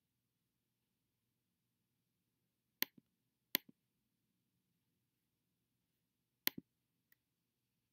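Three sharp clicks of a computer's mouse or trackpad button, about three, three and a half and six and a half seconds in, with a faint tick just after the last. Between them there is near silence.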